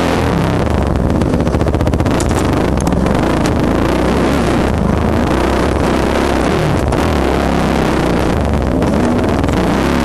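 The four-stroke single-cylinder engine of a 2007 Yamaha YZ450F dirt bike running under throttle, its revs rising and falling, heard from on the bike.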